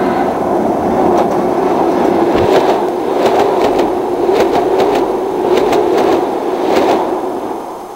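Train passing over a railway bridge directly overhead: a loud steady rumble with a hum, and from about two and a half seconds in, clacks of the wheels over rail joints coming in groups. It fades away just before the end.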